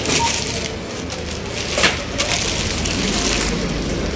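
Plastic bags rustling and crinkling as groceries are handled, with a sharp knock a little before two seconds in.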